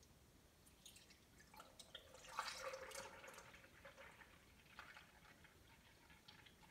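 Liquid egg whites poured from a carton into a blender container: a faint trickle and drips, with a few small clicks as the carton is handled.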